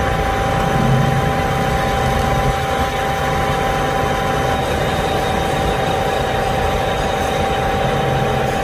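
Metal lathe running steadily while turning a steel part, its drive giving a constant whine over a low rumble.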